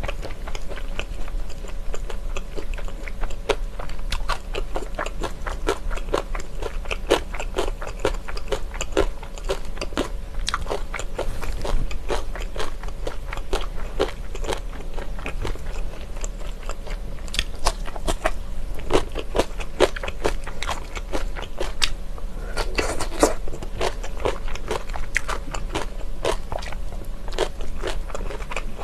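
A person chewing crunchy food close to the microphone: a cold salad of julienned vegetables and glass noodles, with kimchi. The crunches and clicks come one after another without a break, and there is a denser, louder cluster about three-quarters of the way through.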